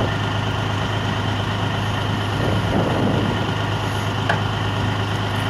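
Semi truck's diesel engine idling steadily, with a single sharp click about four seconds in.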